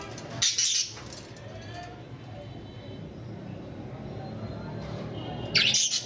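Caged budgerigars chirping and chattering, with two short loud bursts of bird noise, one about half a second in and one near the end, and softer chirps between them.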